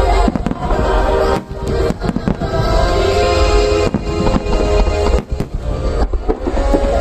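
A star mine fireworks barrage: many shells bursting in quick succession with sharp bangs and crackle, over music with sustained notes.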